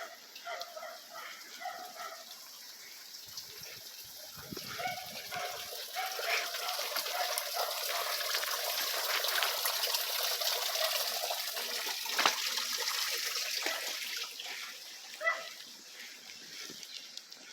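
Water noise that swells for several seconds in the middle and then fades, with a few short animal cries near the start.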